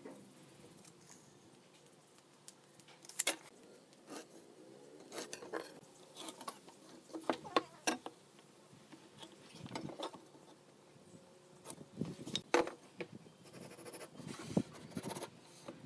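Scattered light clicks, taps and rubbing of hand work with wooden pieces and tools, with sharper clicks about three seconds in and again around twelve and a half seconds.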